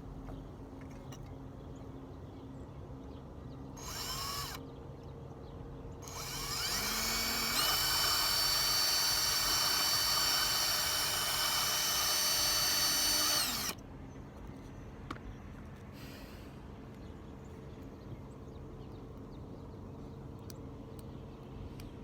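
Small power drill drilling out a rivet on a die-cast model car. A brief blip about four seconds in, then a run of about seven seconds that rises in pitch as it spins up, holds steady and cuts off suddenly, then one more short blip.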